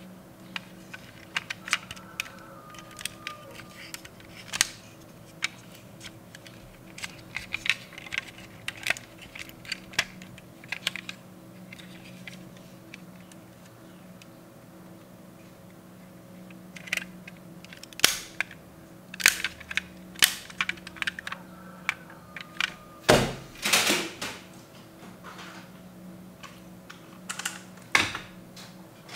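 Small clicks and snaps of a metal toy car's opening doors and parts being worked by hand, with a denser run of louder knocks and rattles between about 18 and 24 seconds in.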